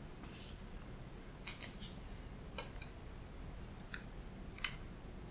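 A few scattered light clicks and taps of chopsticks against a plastic takeaway bowl and a small plastic cup as they are handled. The sharpest click comes near the end, over a low steady room hum.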